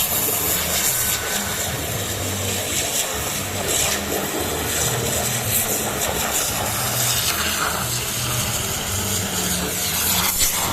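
High-pressure car-wash water pump running steadily, with a continuous hiss over a low hum.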